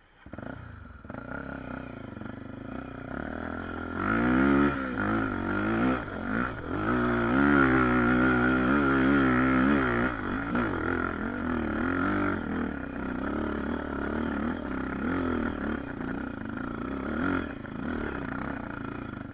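Honda XR250 Tornado's single-cylinder four-stroke engine, bored out to 280cc and fitted with an aftermarket ProTork Powercore exhaust, pulling up a steep dirt hill climb. It gets louder about four seconds in, and for several seconds the revs rise and fall quickly as the throttle is worked over the ruts, then it runs on at a steadier pull.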